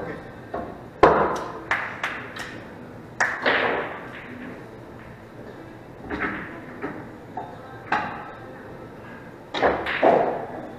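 Pool balls clacking against each other and being set down on the table in a series of sharp knocks, several of them close together near the end, as the balls are gathered and racked for the next game.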